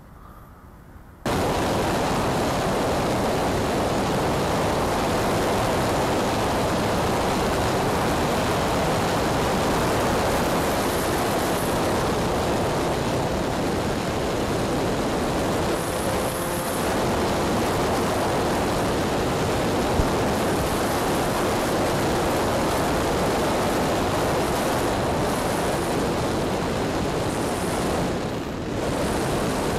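Steady rush of airflow over the microphone of a camera mounted on a flying RC airplane, cutting in suddenly about a second in after a quieter start.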